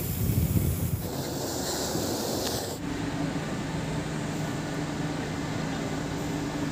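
Wind rumbling on the microphone and a hiss in the first few seconds. From about three seconds in comes a steady low hum with a faint two-tone drone from the tanker ship's machinery.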